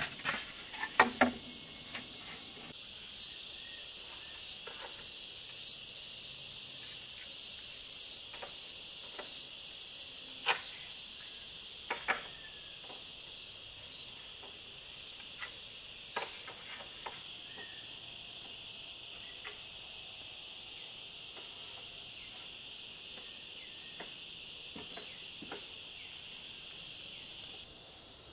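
Rainforest insects calling: a steady high-pitched drone throughout, with a louder pulsing insect call repeating a little faster than once a second for about the first ten seconds. Scattered short knocks and taps sound over it.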